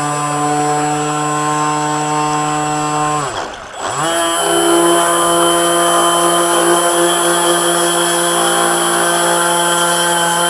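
Model boat's HK 2842 water-cooled brushless electric motor whining at a steady pitch. About three seconds in, its pitch drops sharply and it nearly stops, then it spools back up within half a second and runs steadily again, with water rushing along the hull.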